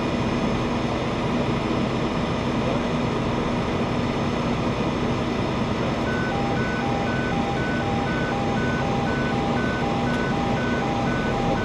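A flatbed tow truck's engine idles with a steady hum. About halfway through, a warning beeper starts: an even, repeating beep that alternates between a high tone and a low one, about two pairs a second.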